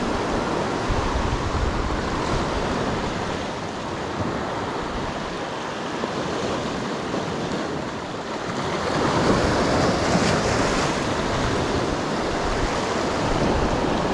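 Sea surf washing and breaking over shoreline rocks, a steady rush that swells louder about nine seconds in as a bigger wave comes through. Some wind noise on the microphone.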